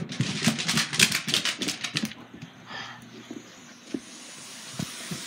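Rapid clicking and rustling of a phone being handled and moved about for roughly two seconds, then a fainter steady hiss with a few single clicks.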